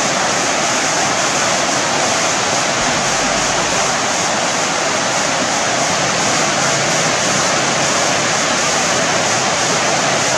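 Water pouring over a low concrete weir: a steady, continuous rush with no let-up.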